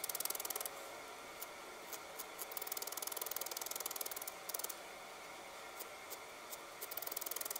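Felting needle stabbing rapidly into wool roving on a felted wool ball, a fast run of fine ticks. It breaks off about a second in, leaving only a few scattered soft clicks, then resumes near the end.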